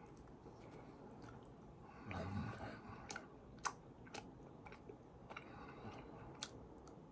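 A person chewing food close to the microphone, with scattered sharp, wet mouth clicks and a low mouth sound about two seconds in.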